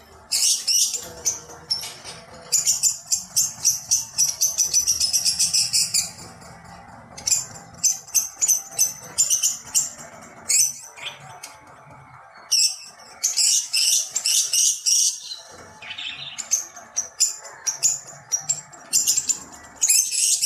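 Small birds chirping: runs of rapid, high chirps that come and go, densest a few seconds in and again around the middle, over faint background music.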